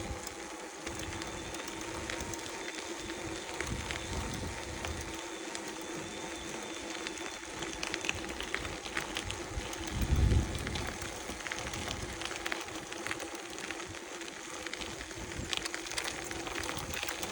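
Fazua Ride 60 mid-drive e-bike motor running under pedalling with a steady hum, and irregular sharp clicks that come more often in the second half. The clicking is a fault the owner is reporting: it persists although all bolts were tightened and the system report shows no errors. A loud low rumble about ten seconds in.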